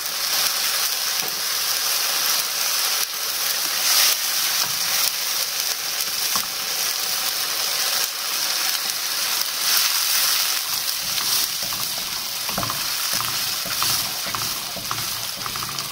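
Tomato and blended black bean soup base sizzling in a hot non-stick wok as a wooden spoon stirs it, with soft scrapes of the spoon through the thick mixture.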